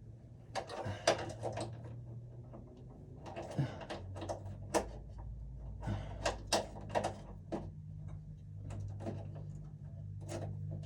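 Irregular light clicks and knocks of hand tools and wires being handled at an electrical breaker panel, over a steady low hum.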